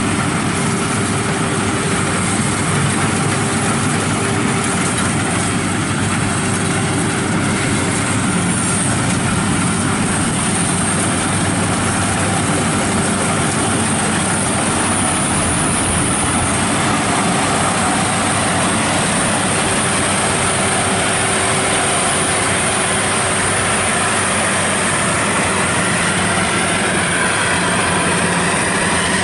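World WD102 rice combine harvester running steadily while harvesting, its engine and threshing machinery making a continuous loud mechanical din.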